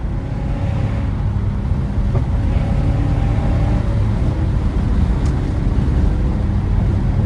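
Lexus GS430's 4.3-litre V8 running with its catalytic converters removed, a steady exhaust rumble while the car is driven, getting a little louder about two seconds in.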